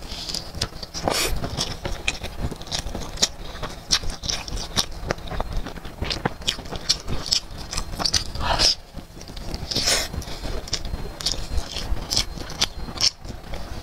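Close-miked crunching and chewing of a crispy deep-fried chicken wing stuffed with rice, with a few louder crunchy bites among the steady chewing clicks.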